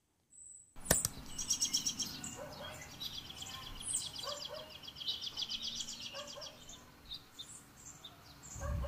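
Birds singing, starting about a second in: rapid high-pitched trills and chirps, with lower short calls now and then.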